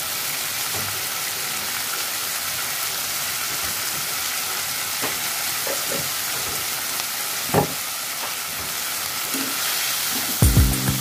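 Chicken pieces with onion and garlic sizzling in a pot, a steady frying hiss with a few light clicks. Near the end a spatula stirs the pieces with a few knocks against the pot.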